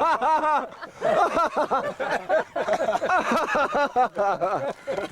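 Men laughing and exclaiming excitedly, with a run of quick repeated laughs near the start.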